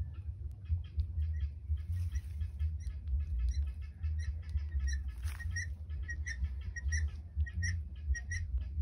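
Helmeted guineafowl calling: a run of short, harsh repeated notes that settles into about three a second, over a steady low rumble.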